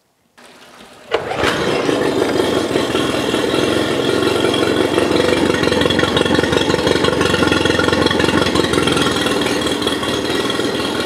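A Mercury 20 HP four-stroke outboard engine starts, catching about a second in, then runs steadily at idle to circulate fresh oil after an oil change. Cooling water from a garden hose splashes off the lower unit.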